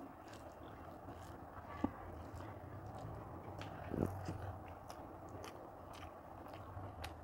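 Close eating sounds of rice with mocha chingri eaten by hand: fingers mixing the soft food on the plate, a mouthful taken about four seconds in, and chewing with many small wet clicks. A low steady hum runs underneath.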